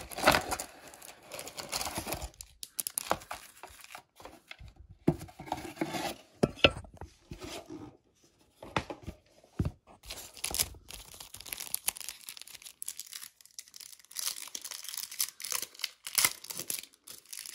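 Foil Yu-Gi-Oh booster pack wrappers crinkling and being torn open, in irregular bursts with a few sharp clicks, along with cardboard packaging rustling as packs are handled.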